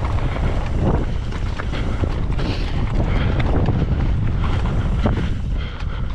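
Strong wind buffeting the action-camera microphone, with a mountain bike's tyres and frame rattling and knocking over rock.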